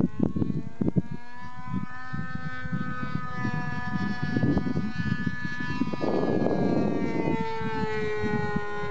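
Engine of a radio-controlled model airplane in flight, a steady high whine whose pitch drops slightly near the end as it is throttled back on the landing approach. A low, irregular rumble runs underneath.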